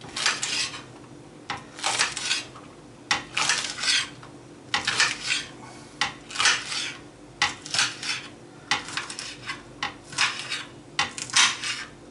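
Kitchen utensils and cookware clattering in repeated short bursts, about one cluster every second and a half.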